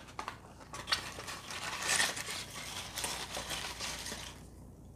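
Small cardboard gift box being opened by hand: cardboard scraping and a paper insert rustling, with a few sharp clicks, stopping about four seconds in.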